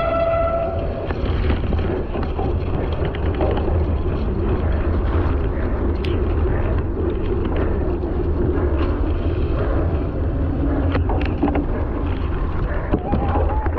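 Wind buffeting the microphone, with tyre and riding noise from a knobby-tyred cyclocross bike rolling over wet gravel and onto mud, and occasional clicks and knocks from the bike over bumps.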